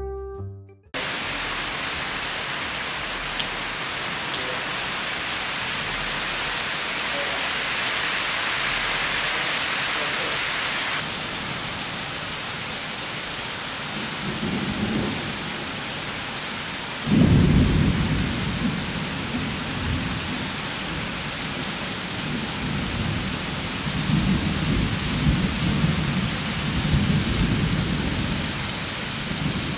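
Steady rain falling, an even hiss throughout. About seventeen seconds in a loud clap of thunder breaks in and rumbles away slowly, and more thunder rolls near the end.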